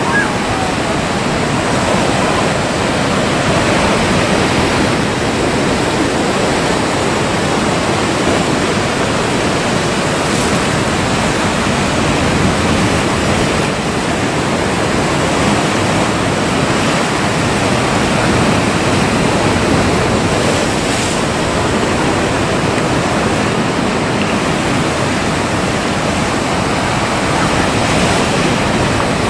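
Ocean waves breaking and surf washing steadily, a loud, continuous rush of churning water.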